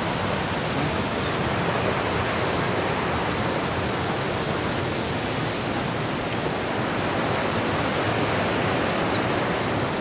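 Rushing water of a mountain stream and waterfall, a steady, even noise with no breaks.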